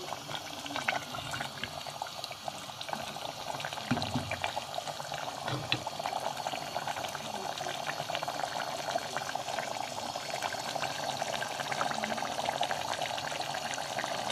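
Meat frying in oil in a clay pot (handi), a steady sizzle of dense crackling and bubbling that grows slightly louder. This is the bhuna stage: the meat's own water has cooked off and it is frying in about half a cup of cooking oil.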